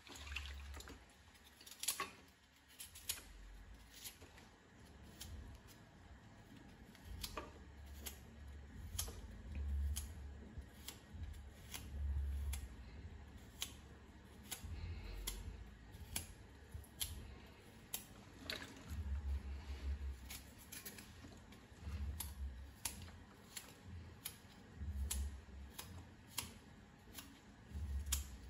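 Kitchen knife cutting fresh coconut flesh into pieces by hand over a metal pot. Irregular sharp clicks as the blade goes through, about one a second, with low dull bumps in between.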